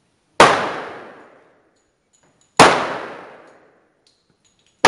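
.45 ACP pistol shots on a covered firing line: three single shots about two seconds apart, the last right at the end, each ringing off in about a second of echo.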